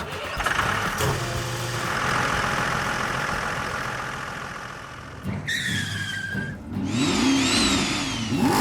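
Toy-vehicle sound effects: a car engine running steadily for about five seconds, then a short held horn-like tone, then a siren rising and falling near the end.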